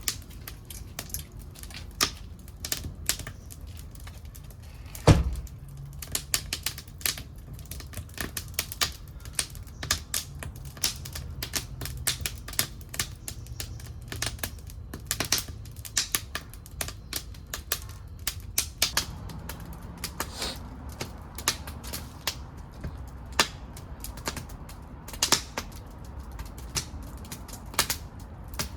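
Wood fire burning in a secondary-combustion wood-gas stove, fed with broken pieces of an old wooden futon chest. It crackles with dense, irregular sharp pops over a steady low rumble of the flames, with one loud pop about five seconds in.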